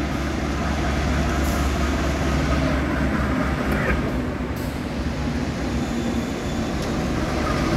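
Passenger train in motion: a steady low rumble with even rolling noise.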